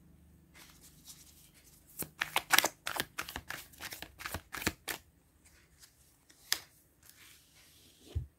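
A deck of tarot cards shuffled by hand: a quick run of crisp card flicks lasting about three seconds, then a single card snap, and a soft thump near the end as a card is laid on the table.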